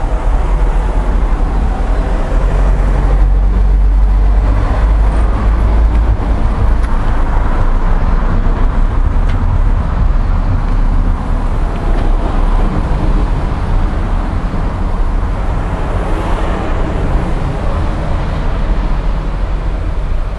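Road traffic from a traffic jam: a steady, loud rumble of car engines and tyres, heaviest in the low end.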